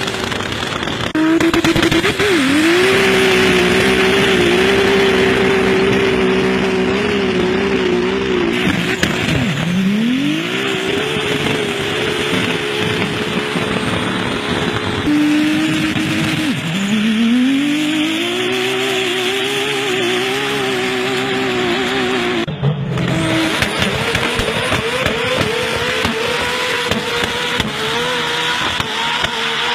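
Modified high-horsepower Jeep engine, said to make 1200 hp, revving hard: it climbs quickly to high revs and holds there, falls off and climbs again several times, drops away abruptly near the end of the second long pull, then runs at lower, uneven revs.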